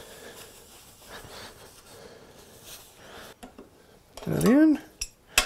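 Soft rubbing as oil is wiped over a cast-iron hand plane body, then a few sharp metallic clicks and knocks of plane parts being handled, louder near the end. A brief hummed vocal sound rising and falling in pitch comes about four seconds in.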